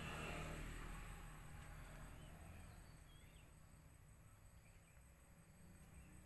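Near silence: faint outdoor ambience with a steady low hum. A soft rush fades over the first second or so, and a few faint high chirps come around the middle.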